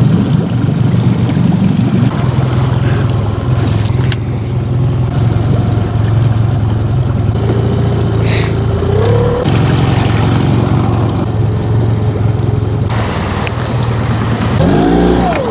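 A vehicle engine running steadily, a loud low drone, with a short rising whine about halfway through.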